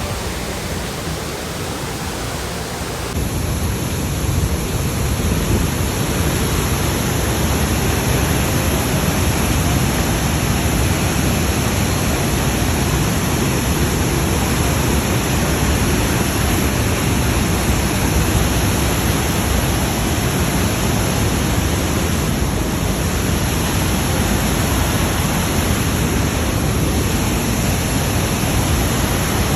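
Waterfall roar, a steady rushing of falling water that grows louder about three seconds in.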